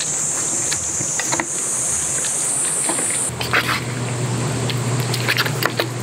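Chopsticks mixing cooked noodles in a small camp cup, with scattered light clicks and wet stirring. A steady high insect chirring runs underneath and stops suddenly about three seconds in, giving way to a low hum.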